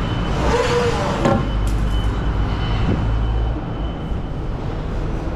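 A vehicle engine running with a steady low rumble that swells and eases, with a few short knocks over it.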